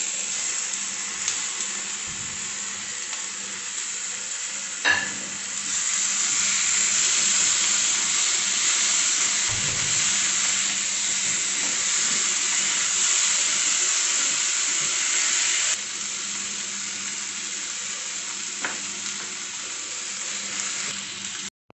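Tomato chunks, onions and garlic sizzling in hot butter in a non-stick kadai while being stirred with a spatula; the frying is a steady sizzle that grows louder about six seconds in and eases back about ten seconds later. A single knock sounds about five seconds in.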